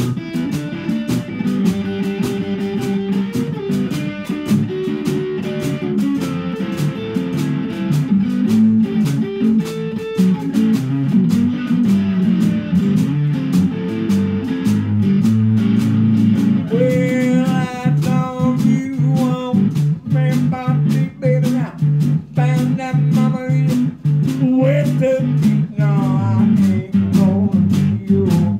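Small blues band playing live: electric guitar riffing over a steady drum beat, with a wavering lead melody coming in a little past halfway.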